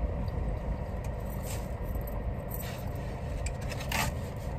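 Small scrapes and clicks of a plastic fork and a takeout food container being handled during eating, the loudest about four seconds in, over a steady low rumble inside the car.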